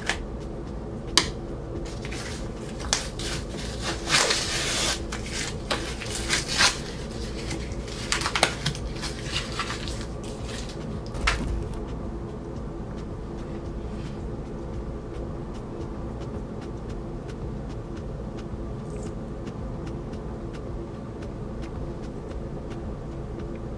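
Scissors cutting through packing tape and a cardboard shipping box being opened and handled: a run of clicks, scrapes and tearing noises over about the first twelve seconds. After that only a steady low hum is left.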